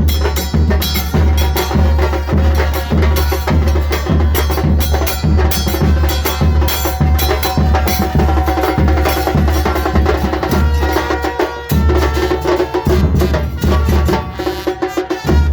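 Band music led by drums: a steady bass-drum beat about twice a second with snare and wood-block-like clicks, under a sustained pitched melody. The beat breaks off briefly a few times in the second half.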